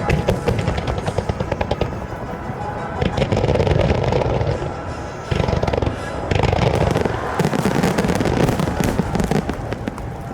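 Aerial fireworks going off in quick succession: deep booms of shell bursts with dense crackling, heaviest about a third of the way in and again past the middle.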